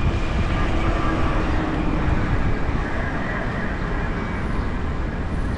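Wind buffeting the microphone and road noise while riding an e-bike, a steady, dense rumble.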